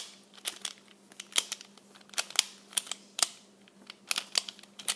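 Plastic Pyraminx puzzle being turned by hand: a run of sharp, irregular clicks, a few a second, as its layers are twisted. A faint steady hum runs underneath.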